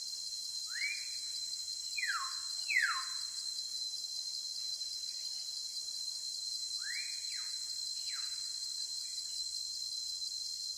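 Steady high-pitched insect drone, with a bird giving short whistled calls that fall in pitch: single calls about one second in, a pair a little after two seconds in (the loudest), and another pair around seven to eight seconds in.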